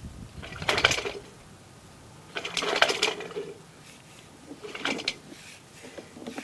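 Sewer inspection camera's push cable being fed by hand down the line: three short bursts of scraping and clattering, about a second and a half apart.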